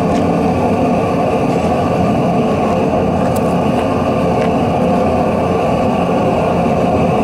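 Steady roar of a small forge fire under a forced air blast, the coals burning hard; a few faint crackles from the fire.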